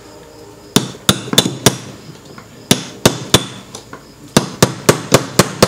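Hammer striking a steel punch set on a piston's wrist pin to drive the pin out of the connecting rod: about a dozen sharp metallic blows in three quick runs of four or five.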